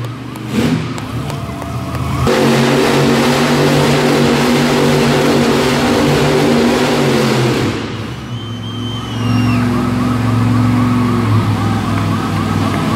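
Monster truck engine running loud and steady, then easing off about eight seconds in as a police-style siren starts, wailing rapidly up and down, about three cycles a second, over the engine.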